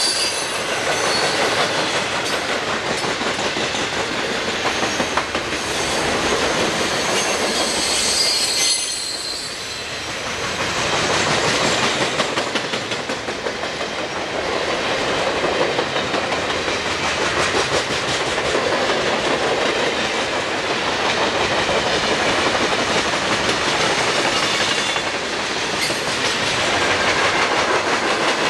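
Freight train's coal hopper cars rolling past, steel wheels clicking rapidly over the rail joints in a steady rumble that swells and eases. Thin, high wheel squeals ring out near the start and again about eight seconds in.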